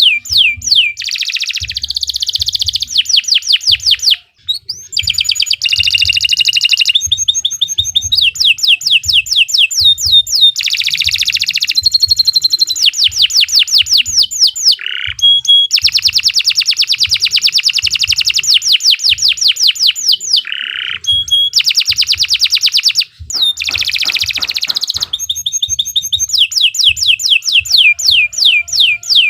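Domestic canary singing a long, loud, unbroken song of fast trills and rapidly repeated sweeping notes, pausing only twice, briefly.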